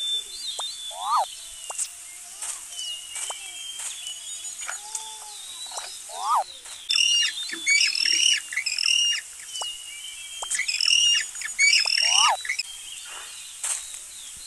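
Birdsong ambience: several songbirds chirping and calling. A short rising call recurs three times, and dense runs of quick repeated chirps come about halfway through and again near the end.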